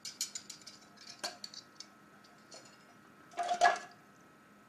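Small metal engine parts clinking against a stainless-steel bowl as they are picked out of a cleaning bath: a run of light clicks, then a louder clatter about three and a half seconds in.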